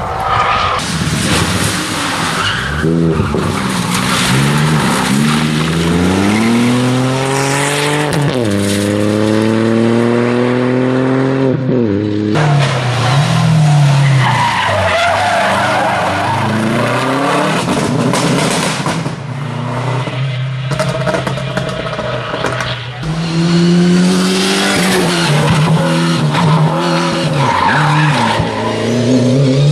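Rally cars driven flat out, one after another, among them a Subaru Impreza and a Ford Sierra. Each engine revs up through the gears, with the pitch climbing and then dropping at each shift, and there is tyre noise and squeal through the corners. The middle stretch is rougher, with less clear engine pitch.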